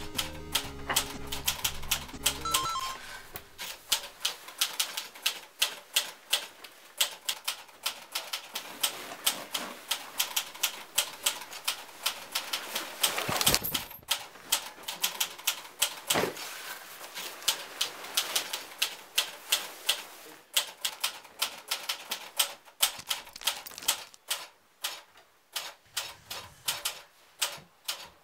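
Steady ticking of a quartz wall clock. Around 13 to 16 seconds in there is a rustling clatter and a thud as school books, folders and pens tip out onto the carpet.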